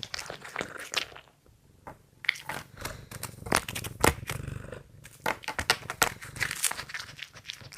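A cat eating noisily: rapid crunching and chewing clicks, with low noises from the cat under the chewing. There is a brief pause a little over a second in.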